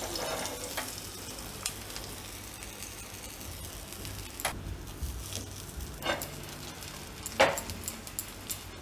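Oil sizzling around the edge of a millet-and-sago batter uttapam on a hot nonstick tawa, a steady hiss with a few sharp clicks scattered through it.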